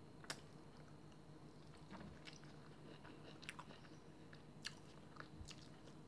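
Faint mouth sounds of eating a ripe gooseberry: small wet clicks and smacks scattered through, the sharpest about a third of a second in.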